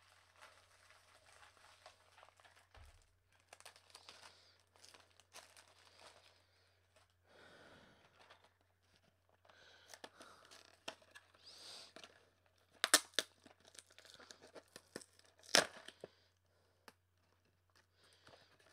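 A cardboard candy box being torn open by hand: tearing, rustling and crinkling of card and wrapping, with two sharp snaps in the second half. A faint steady low hum runs underneath.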